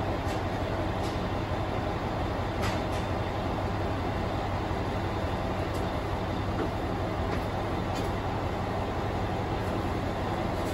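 Heisei Chikuho Railway 400-series diesel railcar standing with its engine idling, a steady low hum heard inside the passenger cabin, with a few faint clicks.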